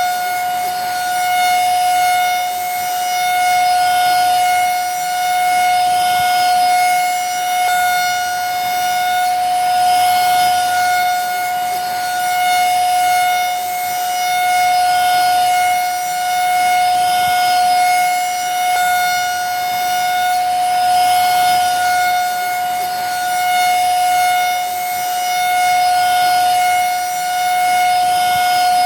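Vacuum cleaner motor running steadily: a high constant whine over a rushing hiss, swelling slightly every couple of seconds.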